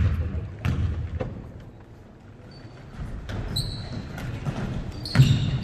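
Basketball dribbled on a gym floor, a few bounces about half a second apart, followed by short, high sneaker squeaks on the court.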